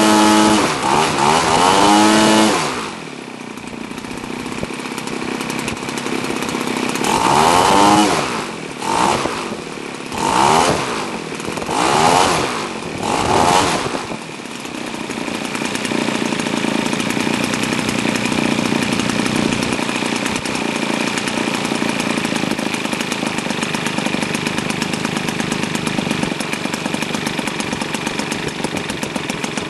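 New Zenoah G62 single-cylinder two-stroke model-aircraft engine running in on a test stand, turning a 23x8 propeller. It runs at high revs that fall away about two seconds in, is revved up and back down several times in quick succession, then settles into a steady idle.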